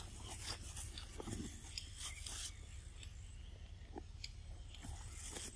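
Macaques biting and chewing corn cobs: scattered short crunches and clicks over a steady low rumble.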